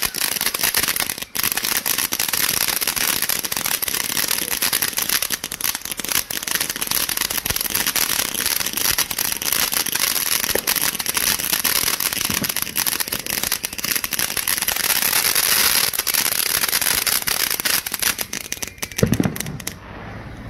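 Ground fountain firework spraying sparks: a continuous hissing crackle packed with tiny pops, which falls away near the end as the fountain burns out.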